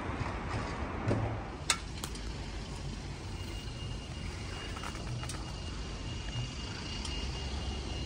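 Road vehicle running: a steady low rumble with a sharp click about one and a half seconds in and a few fainter clicks. A faint thin high tone sounds through the middle.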